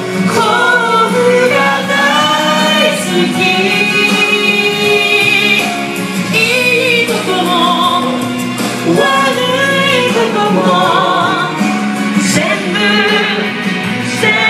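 A large group of people singing a song together, some voices amplified through hand-held microphones, in long held notes.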